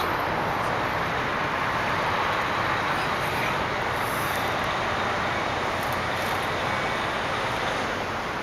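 Steady rushing noise of road traffic, even and unbroken, with no distinct engine note or impacts.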